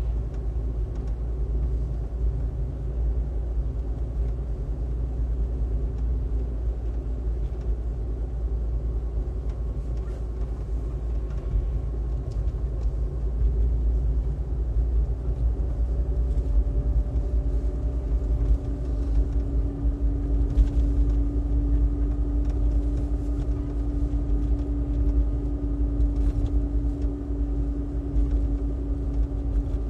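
Car driving along a road, heard from inside the cabin: a steady low rumble of engine and tyres, with a steady hum that gets louder about two-thirds of the way through.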